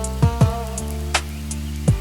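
Background music with a steady drum beat, sustained chords and bass.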